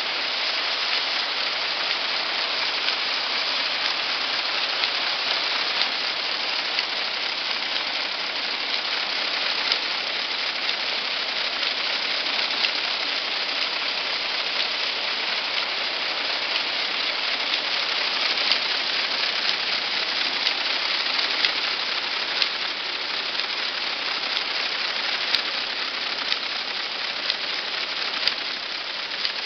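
Round drawcord braiding machine running: its bobbin carriers circling the track make a steady, dense rattle of many small ticks.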